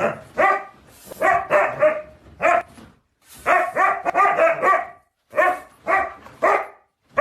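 A dog barking repeatedly: about a dozen short, pitched barks coming in quick groups of two to five, with brief pauses between the groups.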